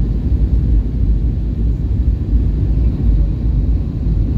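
Steady low rumble of an Airbus A320's engines and rushing air, heard inside the passenger cabin during the approach to landing.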